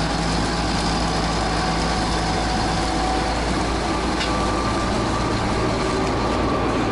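Case IH 2166 Axial-Flow combine running steadily at close range, its diesel engine and machinery making a continuous even drone with a few held tones.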